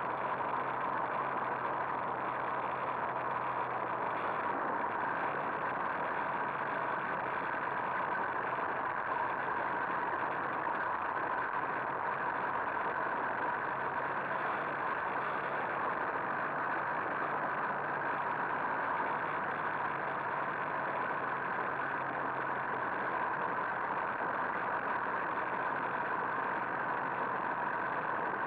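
Two-stroke moped engine running at a steady pitch while riding along a gravel road.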